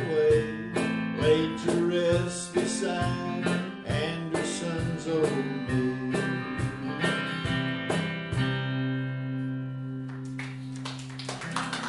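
An archtop electric guitar and an acoustic guitar play the closing instrumental bars of a country-folk song, ending on a final chord that rings out and fades from about eight seconds in. Near the end, listeners start clapping.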